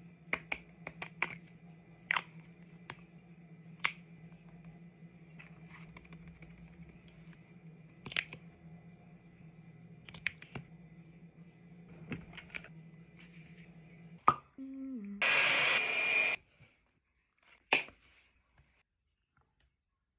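Scattered clicks and taps of small items being handled while getting ready, over a steady low hum that stops about fourteen seconds in. Just after, there is a loud hiss lasting about a second.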